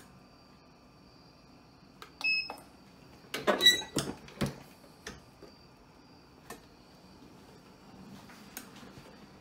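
A swing-away heat press being worked by hand: clunks and clicks from its handle and platen, with a short electronic beep from its controller about two seconds in and another a little before four seconds. Lighter clicks come later.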